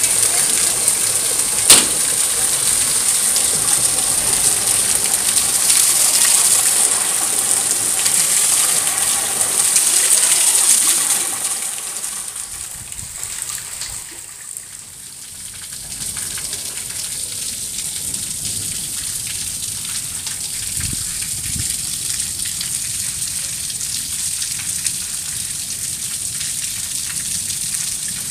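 Heavy rain pouring onto flooded concrete and standing water, a steady hiss of rain and splashing. A single sharp click comes a couple of seconds in, the loudest moment. About halfway through the rain drops in level, then carries on as a steadier, slightly quieter downpour.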